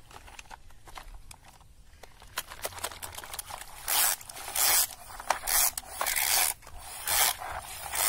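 A plastic toy bulldozer-mixer truck pushed by hand through wet mud, its wheels and body dragging in the muck. Small clicks in the first half, then about five short strokes from about halfway in.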